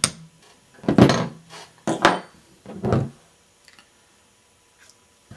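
Small hammer tapping a pin punch to drive the trigger pin out of a paintball marker frame: a sharp tap at the start, then three heavier knocks about a second apart.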